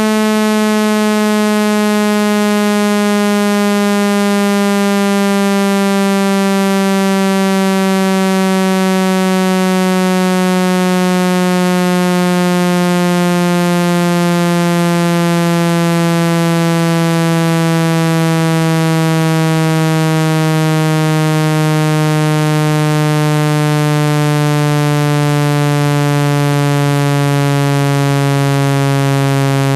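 Synthesized speaker-cleaning tone: a loud, buzzy electronic tone gliding slowly and steadily downward in pitch, over a steady hiss. It is played through a device's speaker to shake dust out of the speaker grille.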